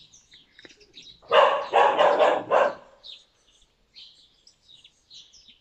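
A dog barking: a quick run of about four loud barks about a second and a half in.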